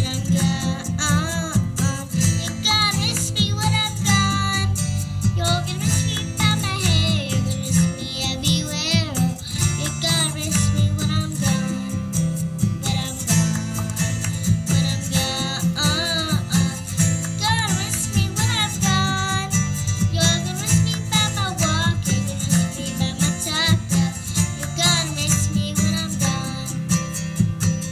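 A young girl singing into a microphone, amplified through a PA, over accompaniment music with plucked guitar.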